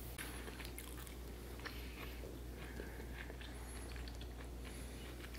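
Someone chewing crispy garlic fried chicken, with faint scattered crunches and clicks of the crust.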